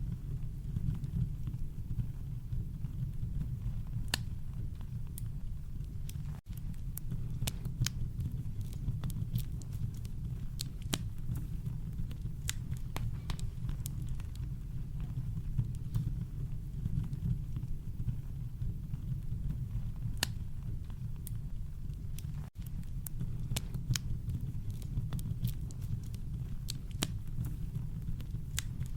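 Campfire crackling, with irregular sharp pops and snaps over a steady deep rumble of brown noise. The sound cuts out for an instant twice, about six seconds in and again about twenty-two seconds in.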